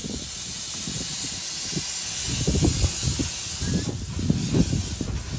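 Miniature live-steam locomotive hissing steam loudly and steadily, the hiss thinning about four seconds in, with irregular low thumps underneath from about halfway through.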